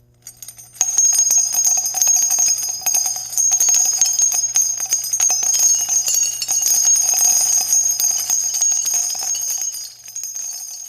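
Jingling bells shaking continuously with a bright metallic ring, starting about a second in and fading near the end.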